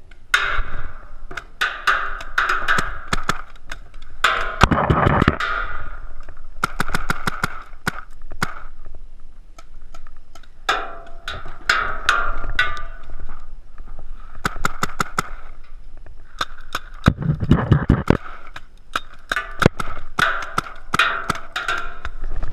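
Invert Mini paintball marker firing strings of rapid sharp pops in repeated bursts, several shots a second, with short pauses between the strings.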